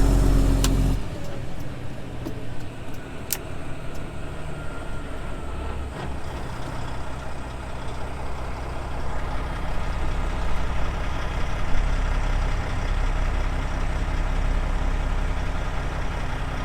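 Grain truck's diesel engine slowing to turn off the highway: the engine note drops about a second in, with a few sharp clicks, then builds again as the truck pulls into the driveway.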